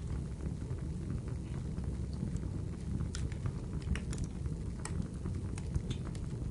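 Steady low rumble with sparse crackles and ticks scattered through it, a few more of them about three to five seconds in.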